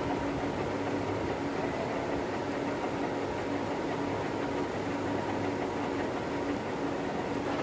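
Metal lathe running steadily under load while an M20x2.5 tap, clamped in the tool post as the cutting tool, cuts a thread into the turning bar.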